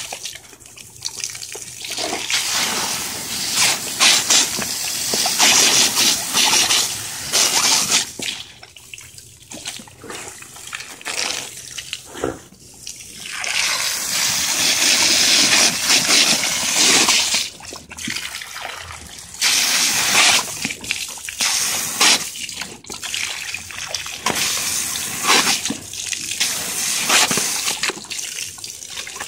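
Garden hose stream splashing onto a wet concrete patio, swelling and fading in uneven surges as dogs bite and snap at the water.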